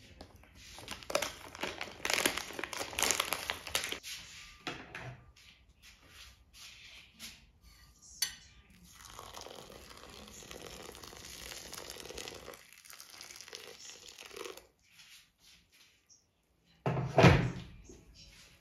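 Handling noise: crinkling, rustling and clattering of things being moved about, then a steady rushing noise for several seconds. One heavy thump comes near the end.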